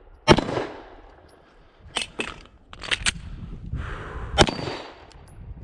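About six 9 mm pistol shots from M17 pistols, irregularly spaced: one shot, then two quick pairs, then a last shot, each a sharp crack with a short echo.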